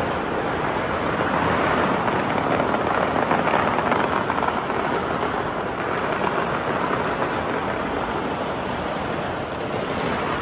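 Many distant fireworks going off across the city at once, merging into a steady, dense crackling rumble with no single bang standing out.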